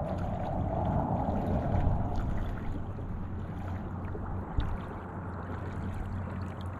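Shallow water lapping and sloshing right at the microphone, with wind noise; louder for the first couple of seconds, then easing to a steadier wash.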